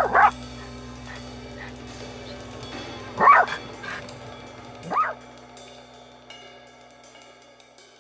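Black toy poodle barking in short, sharp yaps: two together at the start, one about three seconds in and one about five seconds in.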